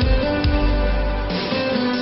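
Background music with a heavy bass beat and sustained held notes.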